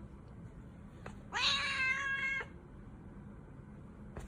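One long, steady, cat-like yowl, starting about a second in and lasting just over a second.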